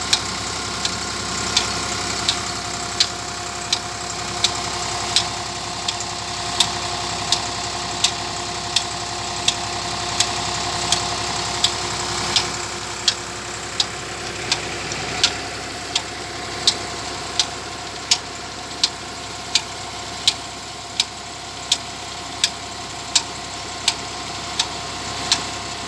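Massey Ferguson 260 tractor's three-cylinder diesel engine running steadily while it drives a tubewell pump through its PTO shaft and pulley. A sharp click repeats evenly about every 0.7 seconds over the engine sound.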